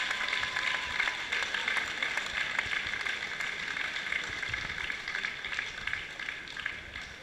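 Crowd applauding, a dense patter of many hands clapping that fades toward the end.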